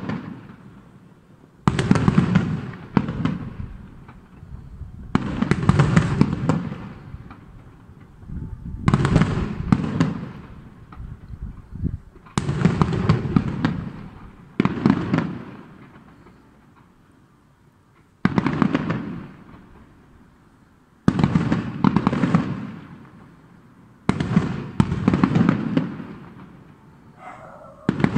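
Fireworks display: aerial shells bursting in a series of booms, about one every three seconds. Each starts suddenly and dies away with a rumbling, crackling tail.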